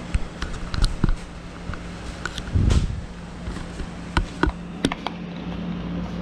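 Handling noise: a string of sharp clicks and knocks, with one heavier low thump about two and a half seconds in, over a steady low hum.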